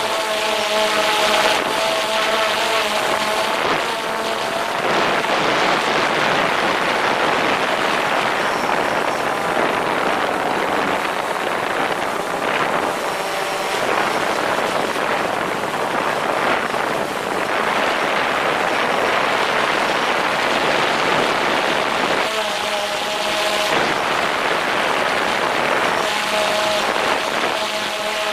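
DJI Phantom 4 quadcopter's propellers and motors running in flight, heard close up from just beneath the drone as a steady hum of several tones, mixed with a dense rush of wind on the microphone. The propeller tone stands out clearly at the start, about thirteen seconds in, around twenty-three seconds in and near the end, and is buried under the wind rush in between.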